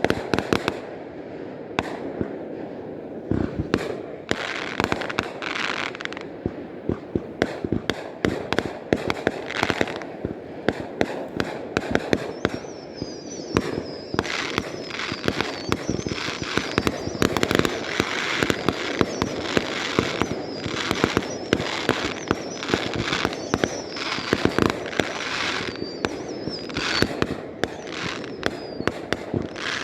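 Fireworks going off in a rapid barrage: many sharp bangs and crackling bursts overlapping one another. From about twelve seconds in, a high wavering whistle runs through the bursts.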